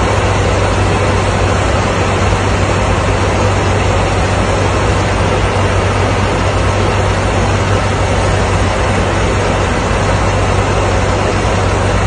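Steady aircraft cabin noise: the even rush of airflow and jet engines heard from inside an airliner in flight, with a low hum underneath.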